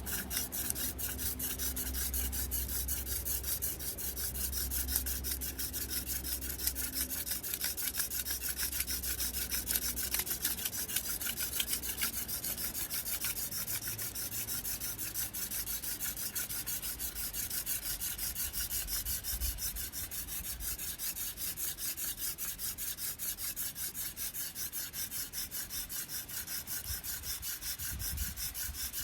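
Hand drill friction fire: a cattail spindle twirled between the palms on a dry velvetleaf-stem hearth board, giving a steady, evenly repeating rubbing and scraping of the drill tip grinding into the hearth.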